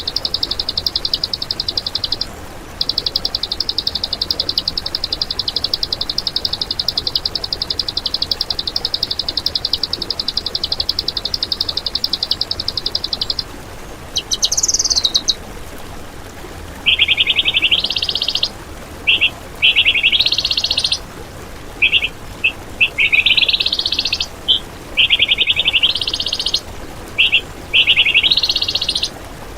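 Songbird singing: a long, very fast trill lasting about thirteen seconds with one brief break, then a string of short rising phrases and quick chips.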